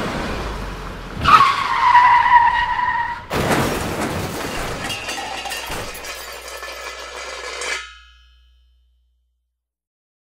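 Car tyres screeching for about two seconds, followed by a sudden crash and clattering debris that fades, then the sound cuts off abruptly.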